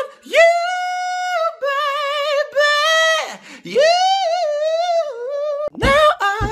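A lone voice singing high and unaccompanied: long held notes, some with a wavering vibrato, and short breaks between phrases.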